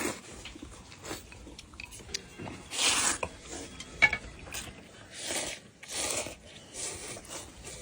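People eating noodles: several short slurps and chewing, with a sharp click about four seconds in.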